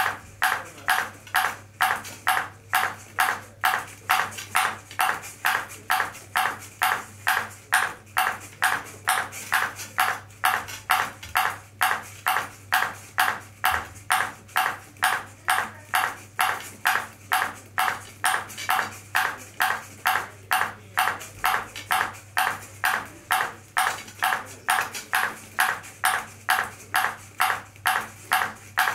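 Ping pong ball bouncing steadily off a robot's clear plastic paddle, a sharp tick about two and a half times a second, each bounce the same as the last.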